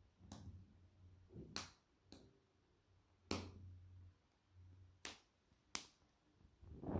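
Faint handling sounds: a series of about six sharp clicks and light knocks, spaced irregularly, with soft low thumps between them.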